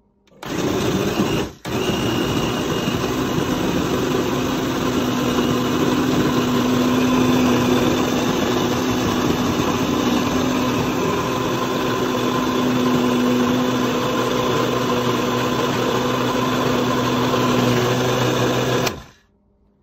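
Hamilton Beach glass-jar blender running at speed, its motor whirring steadily as it purees a fruit-and-greens smoothie. It cuts out for a moment about a second and a half in, then runs on steadily and stops abruptly near the end.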